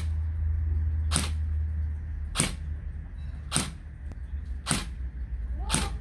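MP5-style gel blaster fitted with a flash hider, fired in single shots: six sharp clicks about 1.2 seconds apart, over a steady low hum.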